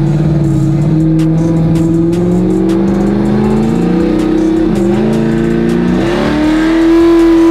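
A pickup's 6.0-litre V8 pulling hard under acceleration, heard from inside the cab. The pitch climbs steadily, drops twice for gear shifts, then holds high and loud near the end.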